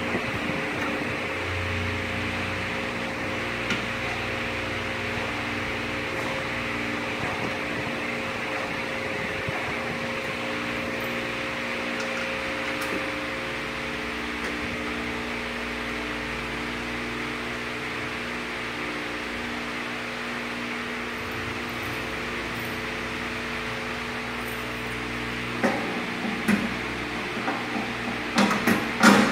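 Steady hum of an electric fan running. Near the end, a handful of sharp metal clinks and knocks as parts are fitted to the mill's steel stand.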